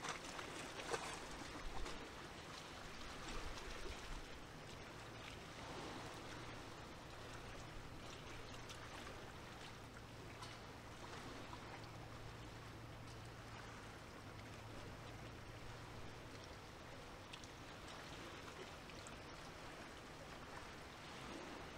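Gentle sea water lapping and trickling, a soft steady wash with small splashes, with a faint low hum through much of the middle.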